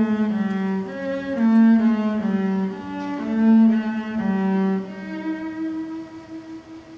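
A low bowed string instrument playing a slow melody of sustained, overlapping notes that step up and down about every half second. From about five seconds in it settles on one higher held note that fades away.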